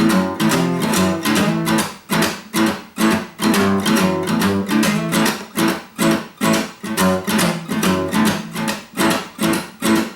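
Acoustic guitar strummed in a steady, rhythmic blues groove, with chord strokes repeating at an even pace.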